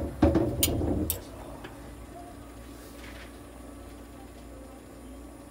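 Knocking and rattling in the first second as a therapy hose is handled into a kitten's cage, with a couple of sharp clicks. Then a steady low hum of the oxygen and inhalation therapy equipment running.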